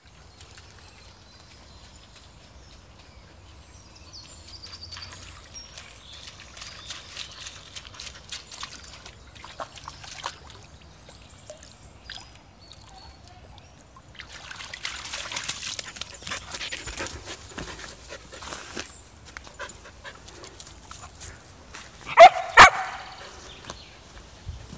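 Samoyed puppy splashing and wading through a shallow, trickling stream, with a denser stretch of splashing in the middle. Near the end come two loud barks about half a second apart.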